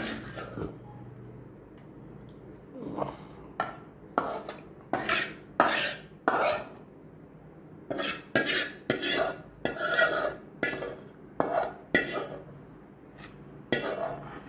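Steel spoon scraping and knocking against a metal pan as lemon pickle is scooped out and tipped into a jar. A short scrape comes at the start, then a quieter stretch, then from about three seconds in an irregular run of scrapes and clinks.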